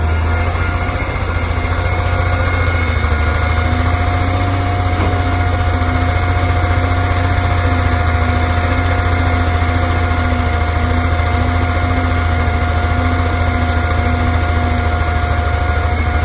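Hyundai R480 excavator's diesel engine running steadily, a deep rumble with a thin steady whine over it.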